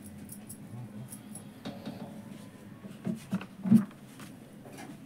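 Handling noise at a desk: three short soft knocks a little after three seconds in, the last the loudest, over a faint low hum and scattered light ticks.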